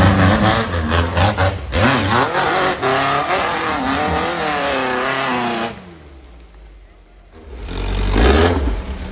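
Off-road buggy engine revving hard under load as it climbs a steep dirt hill, its pitch rising and falling with the throttle. The sound drops away suddenly about five and a half seconds in, then comes back in a loud burst of revving near the end.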